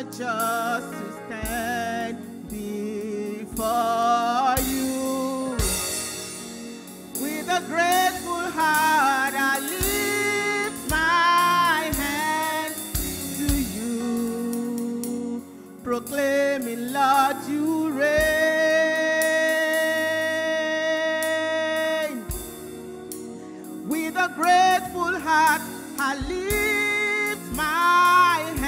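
Gospel song sung by a woman's lead voice over instrumental backing with a drum beat about once a second, the voice holding one long note a little past the middle.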